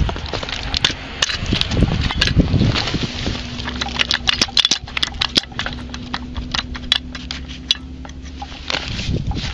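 Rail fastening bolt and steel clamp plate being shaken by a gloved hand, giving irregular metal clicks and knocks: the fastening is loose, a sign of the track's poor condition. A faint steady hum sits underneath through the middle.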